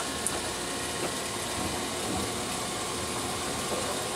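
Steady mechanical running noise heard from inside a Tokyu Setagaya Line 300-series tram car.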